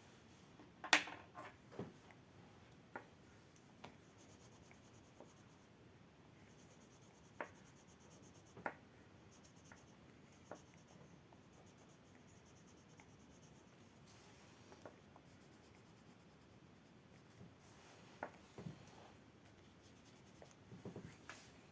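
Faint rubbing and scratching of drawing and colouring on paper, with scattered light taps and clicks: a few in the first two seconds, a handful more through the middle, and a cluster near the end.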